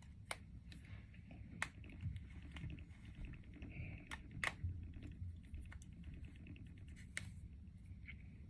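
Faint rustling and scattered light clicks of hands handling braids of synthetic wig hair.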